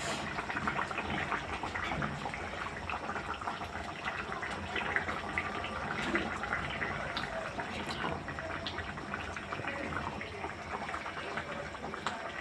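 Egg curry gravy bubbling steadily in a pan on the stove while boiled eggs are put into it, with a few light clicks.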